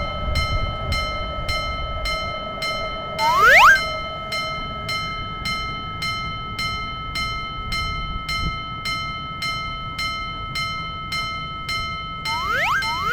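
Japanese railroad crossing warning bell ringing steadily, just under two strikes a second, over the low rumble of a passing train. A single rising glide sounds about three seconds in, and a quick run of rising glides starts near the end.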